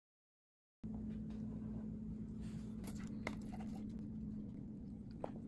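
A brief dead silence, then a steady low hum with a few faint clicks and taps as a metal spatula lifts a cheese-covered enchilada out of a glass baking dish.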